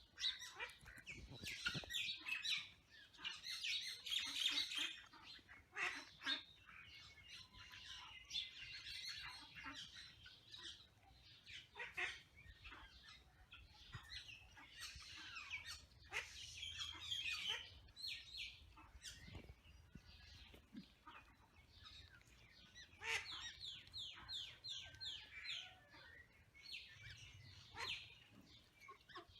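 Birds chirping and calling faintly in the background, with scattered short chirps and a few quick runs of chirps, a denser run about three-quarters of the way through.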